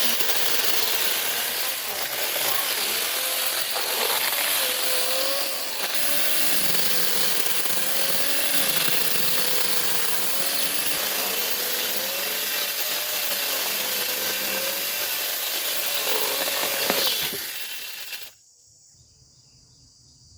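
A power tool cutting or grinding into wood, its motor tone wavering as the load changes. It cuts off about 18 seconds in.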